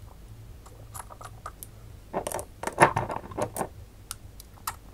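Small glass jar being handled, with scattered light clicks and a cluster of clinking and scraping about two to three and a half seconds in.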